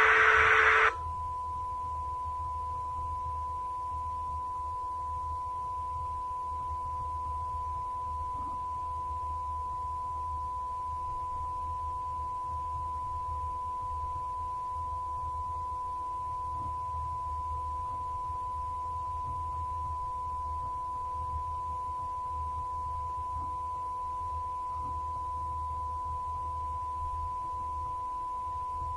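A brief burst of TV static about a second long, then a steady high-pitched test tone like a broadcast colour-bar tone, held without change over a faint low hum.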